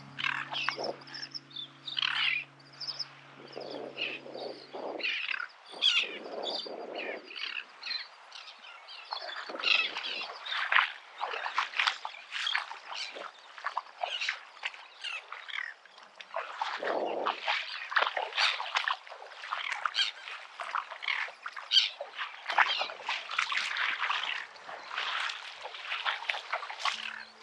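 Seagulls calling: many short calls overlapping, some louder and nearer than others.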